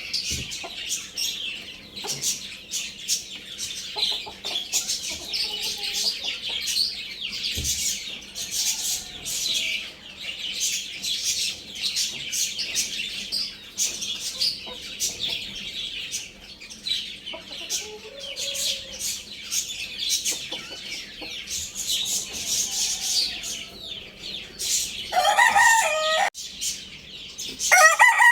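Young rooster crowing, one loud crow near the end and another starting just as it closes, over steady high-pitched peeping and chirping from small birds, with a few soft clucks in the middle.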